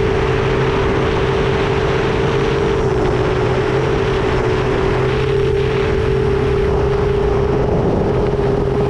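Motors and 10-inch propellers of an FPV quadcopter in cruising flight, heard from its onboard camera: a steady, loud propeller hum with wind rushing past the microphone. The pitch dips slightly for a moment about three and four seconds in.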